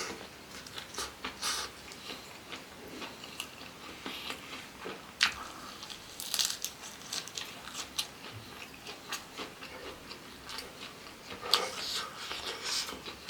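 A person chewing and biting food close to the microphone: irregular wet mouth clicks and crunches, with a few louder bites about five, six and a half and eleven and a half seconds in.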